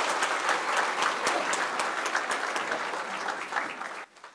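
Audience applause: dense clapping from many hands, cutting off abruptly near the end.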